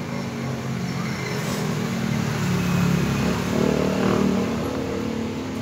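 A motor vehicle's engine passing by, growing louder to a peak about three to four seconds in and then fading away.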